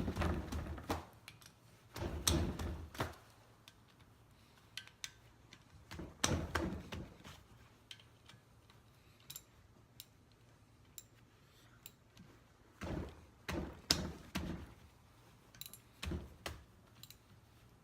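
Hand wrench clicking and knocking on the housing bolts of a semi-hermetic refrigeration compressor as they are loosened, in short bursts of several sharp clicks with scattered single ticks between.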